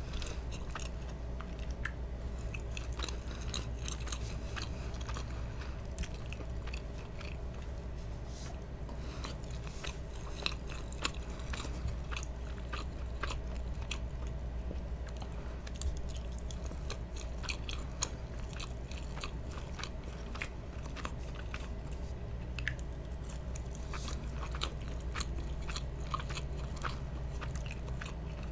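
Close-miked chewing of spaghetti and meatballs: many short wet mouth clicks and smacks, over a steady low hum.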